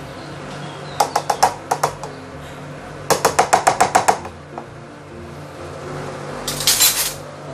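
A spoon tapping quickly against a small dish and the rim of a plastic hand-blender chopper cup, knocking in tamarind (asam) paste. There are two runs of rapid clicks, about five about a second in and about ten around three seconds in, and a brief scrape near the end.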